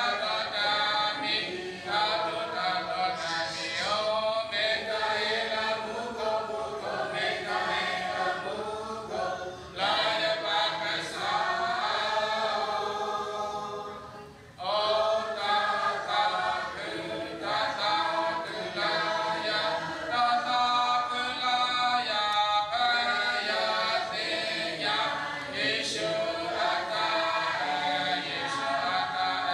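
A choir of many voices singing together, with a short break about fourteen seconds in before the singing starts again.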